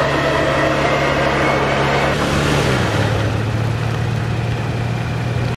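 Electric winch on a Toyota Tacoma's front bumper running, a steady mechanical hum that drops a little in pitch about three seconds in.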